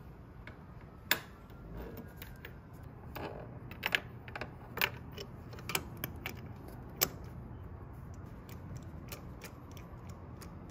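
Scattered metal clicks and clinks from a steel spark plug socket and extension bar, holding a new spark plug, knocking against the engine as the plug is fed into the plug hole and threaded in by hand. The loudest click comes about a second in, with a quick run of clinks a few seconds later.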